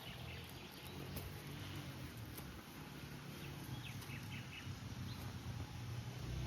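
Faint outdoor ambience: a few short bird chirps in the middle over a steady low background rush.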